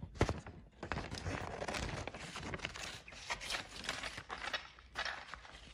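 Scissors cutting paper: a run of short, irregular snips.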